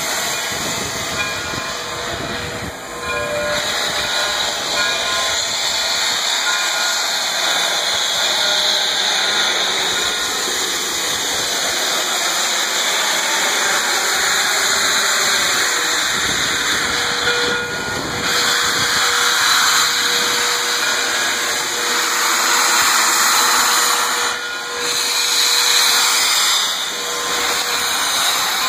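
Steady hiss of steam escaping from the open cylinder cocks of Frisco 1630, a 2-10-0 Decapod steam locomotive, swelling louder now and then.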